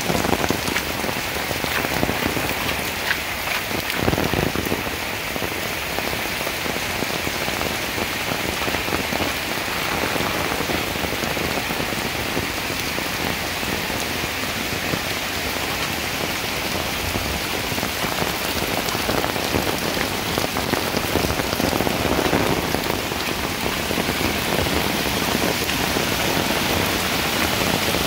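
Torrential rain pouring steadily onto a concrete path and surrounding foliage: a dense, even hiss. This is a red-rainstorm-level downpour.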